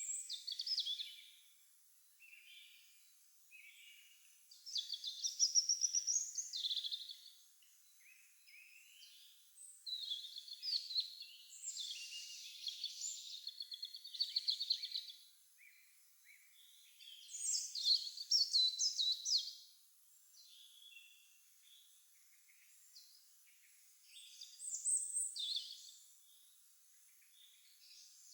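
Songbirds singing in spring: bright, high song phrases a second or two long every few seconds, with the loudest bursts about five, twelve and eighteen seconds in, and some overlap between birds.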